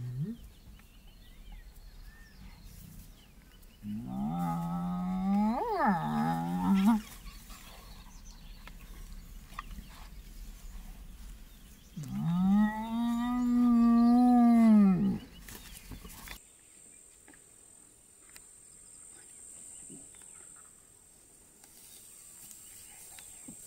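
Spotted hyenas calling: two drawn-out pitched calls of about three seconds each, the first wavering up and down in pitch about four seconds in, the second held steady about twelve seconds in.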